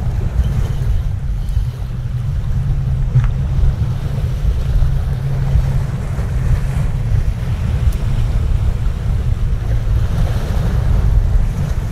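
Strong wind buffeting the microphone in a heavy low rumble, over the wash of surf against the jetty.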